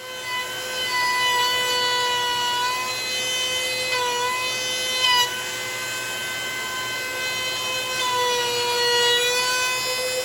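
Wood router running at a steady high-pitched hum while rounding over edges in cherry wood; its pitch sags a little a few times as the bit bites into the wood, with a brief louder moment about five seconds in.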